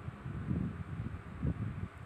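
Low rustling and soft bumps of a kitten wrestling with a hand on a cloth bed cover, loudest twice, about half a second and a second and a half in, over a steady faint hiss.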